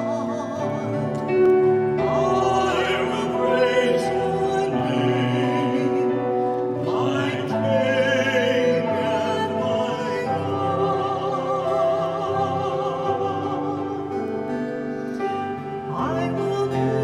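A cantor's solo voice singing the responsorial psalm with vibrato, over sustained instrumental accompaniment.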